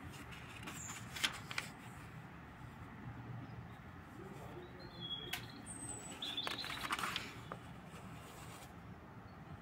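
Thin-paper sketchbook pages being turned by hand: light taps and a paper rustle, loudest around six to seven seconds in. A few brief, faint high chirps sound in the middle.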